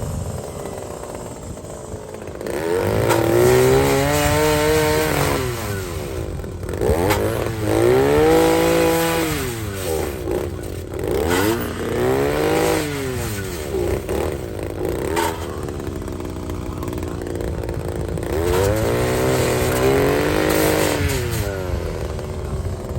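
Power grinder sharpening the teeth of a forestry mulcher. Its motor pitch rises and falls over and over, every few seconds, as the grinder is worked against the teeth, with a few sharp clicks in between.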